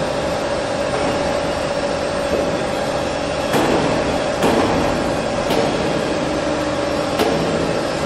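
Industrial machinery running steadily with a constant mid-pitched hum. Over it come a few sharp metallic knocks about midway and again near the end, as the die rack is handled.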